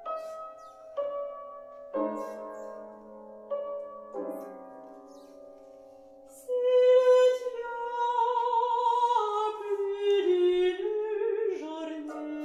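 Square piano playing a quiet introduction of struck chords that ring and fade. About six and a half seconds in, a woman's classical singing voice enters with a long held note with vibrato, then moves down step by step over the piano accompaniment. The voice is the loudest sound.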